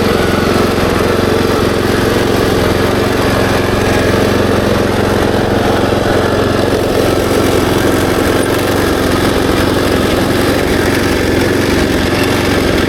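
Kubota SPJ400 rice transplanter's small engine running steadily.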